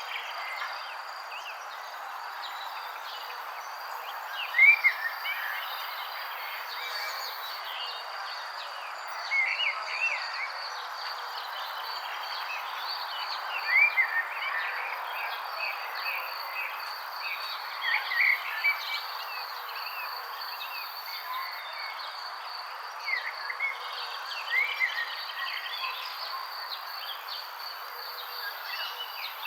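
Nature ambience: birds give short chirps every few seconds over a steady high insect trill, like crickets, and a constant background hiss.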